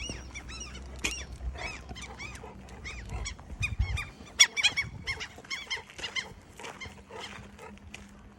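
Gulls calling: a rapid series of short, repeated cries, several a second, one of them louder about four seconds in.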